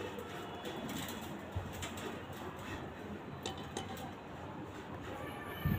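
Faint bird calls over a steady outdoor background, with a few light clicks and a low thump near the end.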